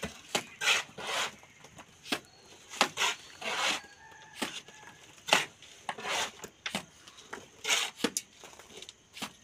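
Masons' hand trowels scraping and slapping mortar plaster onto a brick wall in irregular strokes, a little under two a second, some with a sharp click of the blade.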